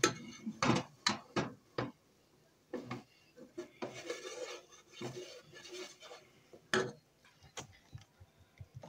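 White plastic spoon scraping and knocking against the side and bottom of a large cooking pot while stirring flour into hot bacon grease for a roux, with a run of sharp taps early on and a few more later.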